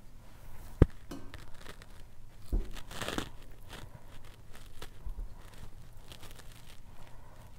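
Italian sausage casings being slit and peeled off by hand, with soft tearing and squishing as the raw sausage meat is pushed out into a stainless steel pot. A single sharp knock a little under a second in is the loudest sound, with a louder rustling burst around three seconds in.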